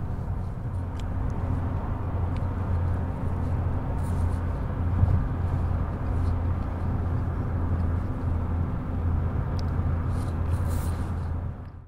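Steady low rumble of road and engine noise inside a moving car's cabin, with a few faint light clicks, dropping away near the end.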